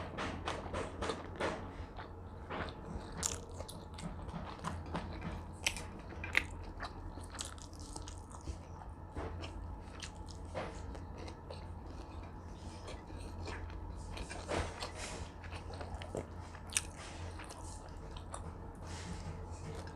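Close-miked chewing and crunching of food, with many irregular wet mouth clicks and crackles, over a steady low hum.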